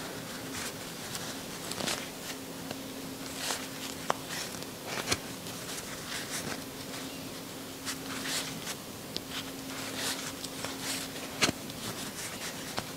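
Crochet hook and yarn rustling close to a clip-on microphone as stitches are worked, with soft scratches and a few sharper clicks, the loudest near the end. A low steady hum runs underneath.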